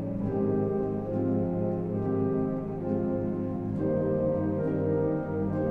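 Slow orchestral background music with long held chords that shift every second or so, brass to the fore.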